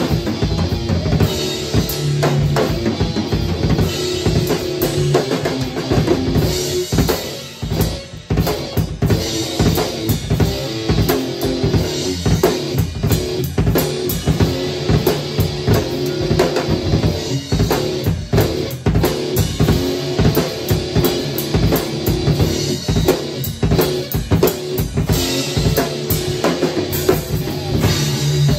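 Live rock jam: an acoustic drum kit played hard and busy on bass drum, snare and cymbals, with an amplified electric guitar holding notes underneath. The playing dips briefly about eight seconds in.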